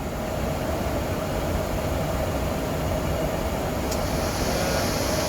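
Steady Boeing 737 flight-deck noise during an approach: airflow and air-conditioning rush over a low rumble, with a steady hum. About four seconds in a brief click sounds, and a brighter hiss sets in after it.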